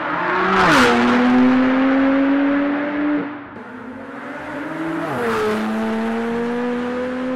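Porsche 911 Turbo S twin-turbo flat-six with a Kline Inconel exhaust, passing by twice: once about a second in and again about five seconds in. Each pass is a loud rush in which the engine note drops in pitch, then holds steady as the car moves away.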